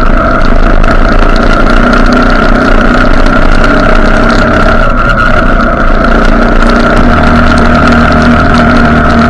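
Vehicle engine running steadily at road speed under a heavy rush of wind and road noise.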